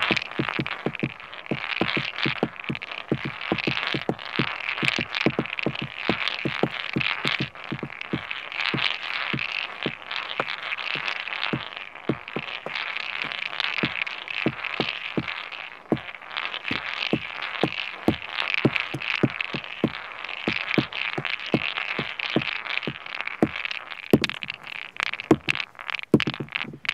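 Pebbles tapped and rubbed against driftwood and stone: a dense, uneven run of small clicks and knocks over a steady scraping hiss.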